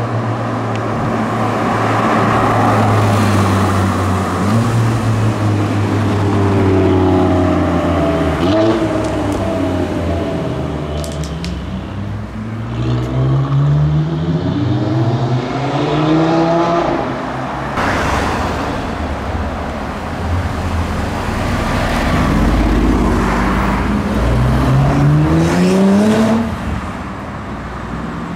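Performance car engines accelerating away one after another: steady engine running early on, then three hard pulls with the pitch sweeping upward through the revs, separated by passing traffic.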